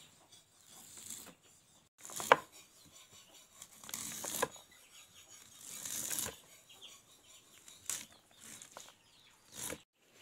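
Kitchen knife shaving kernels off an ear of fresh corn onto a wooden board: a series of short scraping strokes about every second or two, with kernels pattering down and the blade knocking on the board once.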